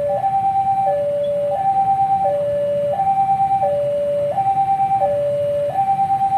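Railway level-crossing warning alarm sounding: an electronic two-tone signal that switches evenly between a higher and a lower pitch about every 0.7 s, warning that a train is approaching.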